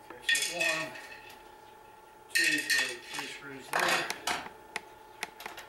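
Loose metal parts and tools clinking and clattering as they are picked up and set down on a tabletop. The clatter comes in three bursts, followed by a few sharp single clicks near the end.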